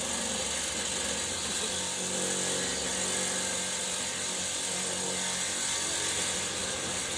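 A power tool running steadily with a bright, hissing tone as it works through a wooden timber.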